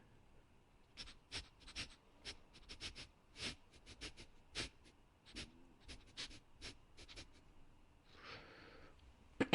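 Werewolf sound effect: quick, short sniffs in irregular clusters, followed by a longer breath near the end.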